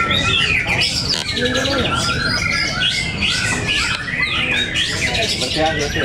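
Many caged white-rumped shamas (murai batu) singing and calling over one another in a dense, continuous chorus of quick rising and falling whistles and warbles, the birds duelling in song with each other.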